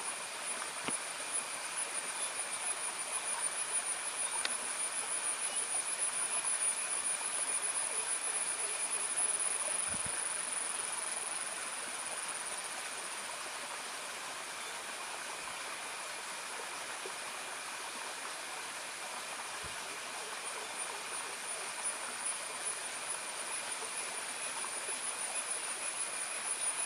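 Steady outdoor forest ambience: an even hiss with a continuous high-pitched insect drone and a fainter, lower drone beneath it.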